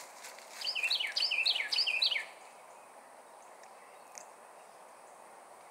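A songbird singing one short song of three quick repeated phrases, each made of high notes that drop in pitch, over a faint steady outdoor hiss.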